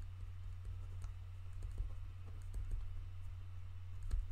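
Irregular clicks of typing on a computer keyboard, over a steady low hum.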